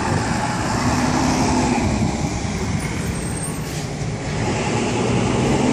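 Steady running of a large vehicle's engine close by, a continuous rumble with a faint steady hum.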